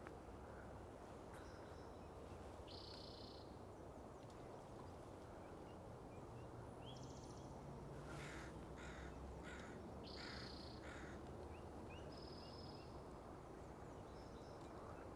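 Faint birds calling over a low, steady background hum: short high calls repeat every few seconds, and a run of about five harsh, rasping calls comes about eight to eleven seconds in.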